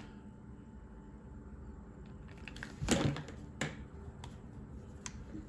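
A pair of fishing pliers being handled and taken out of a hard plastic blister pack. The first two seconds are quiet, then a quick cluster of clicks and knocks comes about three seconds in, followed by a few lighter clicks.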